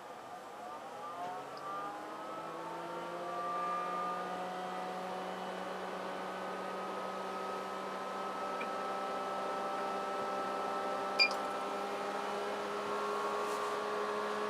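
The small internal cooling fan of a Crown CDi1000 power amplifier starting up, rising in pitch over the first few seconds and then whirring steadily as the amplifier heats under high output. A single short click comes about eleven seconds in.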